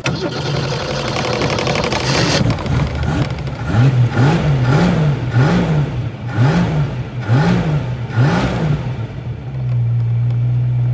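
A vehicle engine starts and runs unevenly, then is revved in about six quick blips that rise and fall. Near the end it settles into a steady idle.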